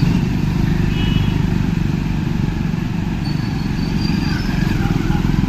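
Motor vehicle engine running steadily, a continuous low rumble with no break or change in pitch.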